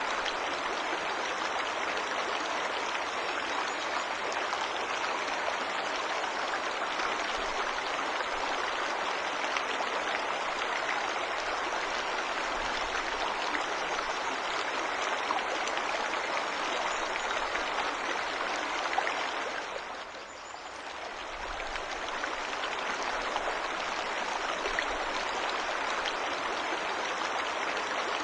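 Waterfall water rushing in a steady, even wash of noise, which dips briefly about twenty seconds in and then comes back.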